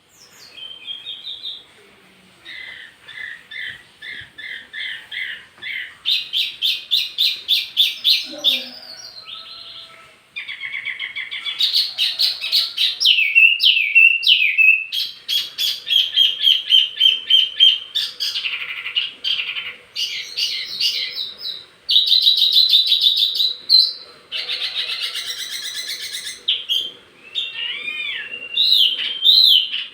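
Wambi mini songbird singing a fast, varied song of rapid repeated chirps and trills, switching to a new phrase every second or two.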